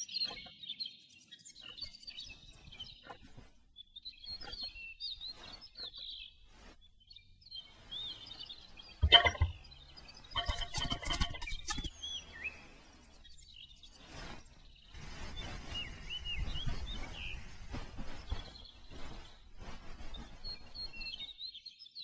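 Small birds chirping over and over in the background, with scattered soft knocks and rustling. A single sharp knock about nine seconds in is the loudest sound, followed by a short burst of clicking and a longer stretch of rustling.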